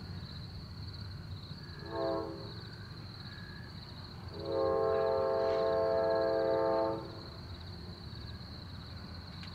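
Distant locomotive air horn sounding a chord: a short blast about two seconds in, then a long blast of about two and a half seconds, the close of a grade-crossing signal.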